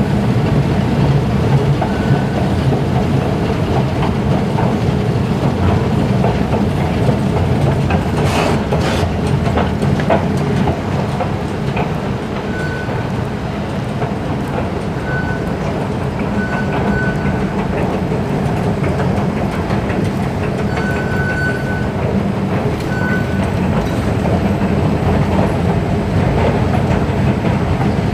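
Steady mechanical rumble of escalator machinery inside an underground metro station, with a brief clatter about a third of the way in and a few short high beeps now and then.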